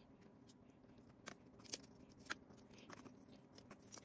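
Faint, scattered clicks and light taps of metal kitchen tongs handling a pork chop while dredging it in flour in a plastic tub.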